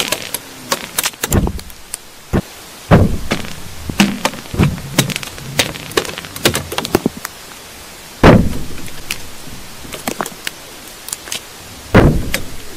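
Irregular knocks, thumps and sharp clicks coming up a household sewer drain pipe, some ending in a low, hollow ring. The loudest thump comes about eight seconds in and another near the end.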